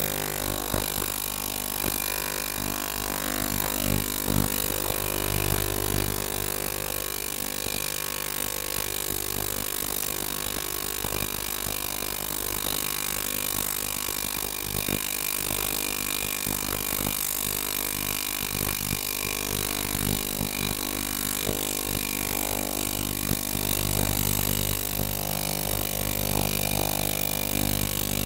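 Ultrasonic cleaner running: a steady hum with many overtones under an even hiss from the water bath.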